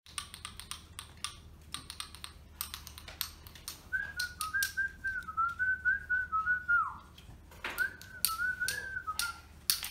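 A person whistling a short tune in two phrases, the first ending in a downward slide. Underneath are quick, irregular clicks and taps of cards and game pieces being put down.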